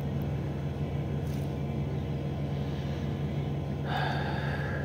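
Steady low machine hum in the room, with a short sniff about four seconds in as the perfume dabbed on the wrist is smelled.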